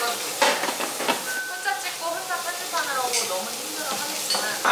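Food sizzling on a tabletop barbecue grill, a steady hiss, with a few sharp clicks of metal tongs.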